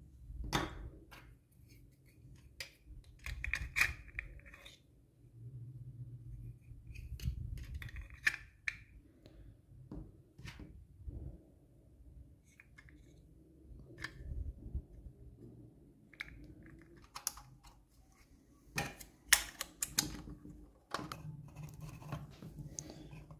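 Hard plastic model-kit parts being handled and pressed together: scattered clicks and knocks of plastic on plastic with handling rubs, a couple of short squeaks, and a cluster of louder snaps near the end.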